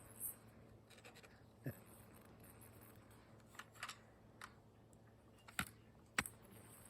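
A few sharp, separate clicks and taps, about seven in all and unevenly spaced, over a faint steady hum.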